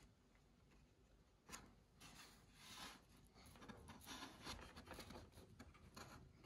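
Near silence with faint scattered clicks and rubs: small machine screws being set by hand into their holes in a foam model jet's wing.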